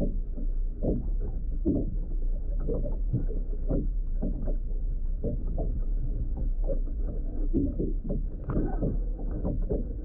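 Irregular water splashing and sloshing over a steady low rumble, muffled and dull, with no high tones.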